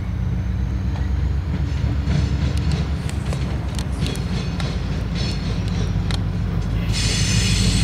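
EMD SD40-2 diesel locomotives rumbling steadily past at low speed, with wheels clicking over rail joints and switch points. A higher hiss comes in near the end.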